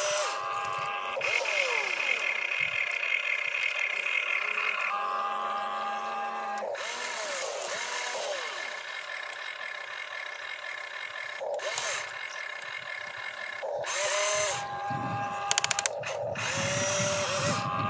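Small electric motors of a toy RC excavator whining as the boom, arm, bucket and turntable move, the whine switching on and off and changing pitch as different functions start and stop. Near the end a quick run of sharp clicks, then gritty noise as the bucket digs into gravel.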